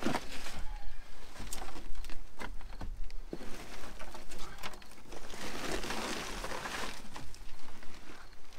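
Old, rotted car carpet and its padding being pulled up off a rusty, debris-strewn floor pan and folded over: rustling and crackling of the dry material, with scattered knocks and scrapes. The rustling thickens about five seconds in.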